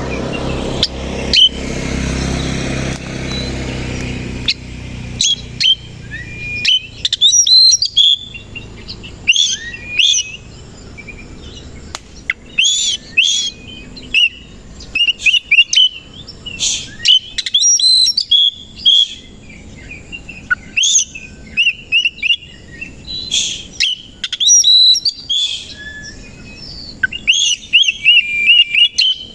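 Oriental magpie-robin (kacer) singing in an excited, fighting mood, in repeated loud bursts of sharp whistles and chirps with short pauses between phrases. A low rumbling noise runs under the first few seconds before the song starts in earnest.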